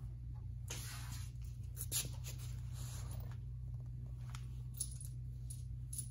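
Steady low hum with scattered rustling, scraping and light clicks from someone moving about and handling parts at a tractor.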